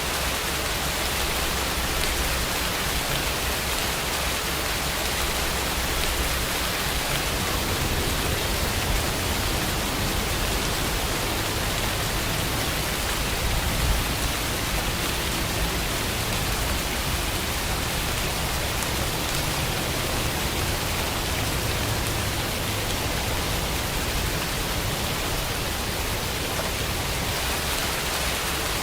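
Steady rain, an even continuous hiss with no breaks.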